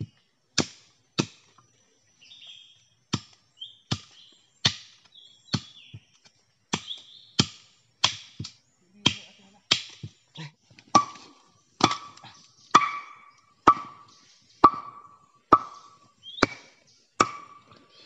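A machete chopping into a green bamboo stem: sharp, separate strikes about two a second, with a short pause after the first two. From about eleven seconds in, most strikes carry a ringing note.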